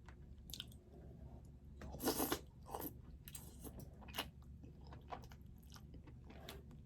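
Close-up eating sounds of a person chewing crab meat: wet smacks and short sharp clicks, with a louder burst about two seconds in.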